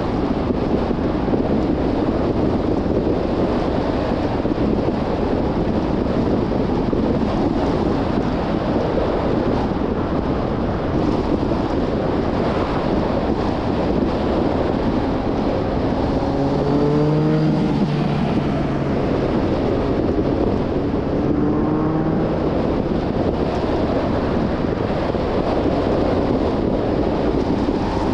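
Steady road and wind noise of a car driving along. A low engine note briefly rises out of it about two-thirds of the way through, then again more faintly a few seconds later.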